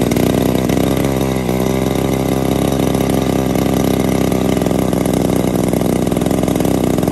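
The 55cc two-stroke gasoline engine of a large RC model airplane, just started by flipping the propeller, runs steadily. Its pitch dips briefly about a second and a half in.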